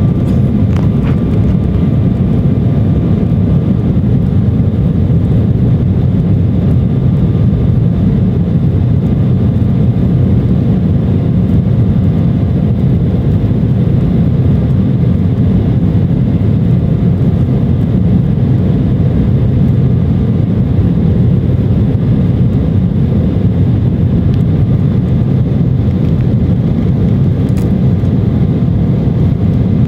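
Steady low roar of an Embraer E-170's GE CF34 turbofans and airflow heard inside the cabin during take-off, with a faint steady whine above the rumble.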